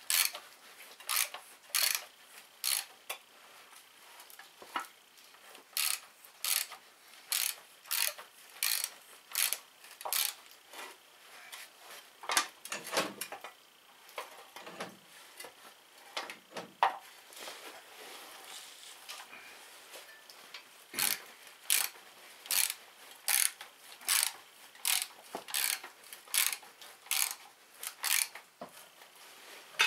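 Hand ratchet wrench clicking in repeated strokes as bolts on a garden tractor's differential housing are turned, with a looser, irregular stretch midway.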